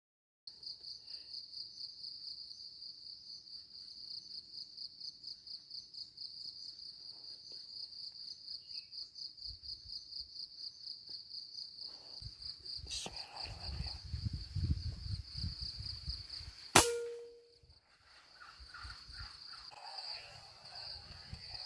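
Insects trilling steadily in a high, fast-pulsing tone, with some low rumbling handling noise. About 17 s in comes one sharp, loud crack with a short metallic ring, a single air rifle shot.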